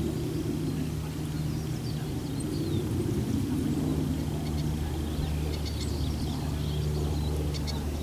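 Steady low rumble of distant road traffic, with faint, short high bird chirps scattered over it, a few more of them near the end.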